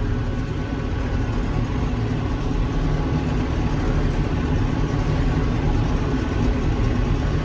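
John Deere 6145M tractor engine running steadily as it pulls a large square baler, heard from inside the cab.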